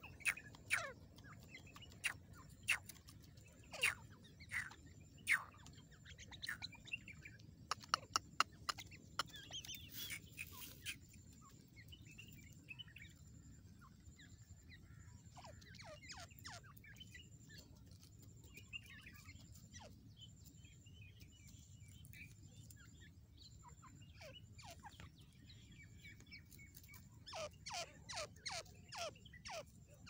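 Grey francolin calling: runs of short, sharp notes that drop in pitch, repeated quickly, with fainter chirps in between. A dense run of calls opens the stretch and another comes near the end.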